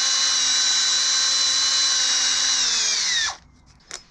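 Electric drill running at a steady high whine, spinning a corroded brake pad pin held in its chuck to clean the corrosion off. About three seconds in, the trigger is released and the motor winds down to a stop, followed by a couple of light clicks.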